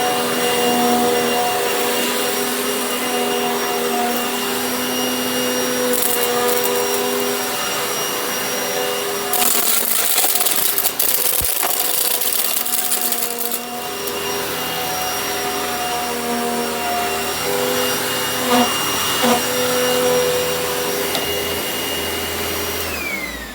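A small electric motor running steadily with a constant whine, with two stretches of louder rushing noise. Near the end its pitch falls as it spins down.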